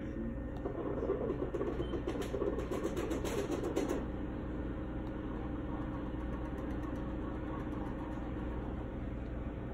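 Steady low hum of running sign-shop machinery, the wide-format printer and vinyl cutter, with a rougher, louder stretch and faint clicks during the first four seconds before it settles to an even hum.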